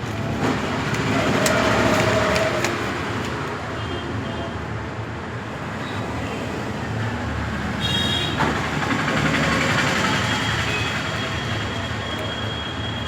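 Steady road traffic noise, with a short high-pitched tone about eight seconds in.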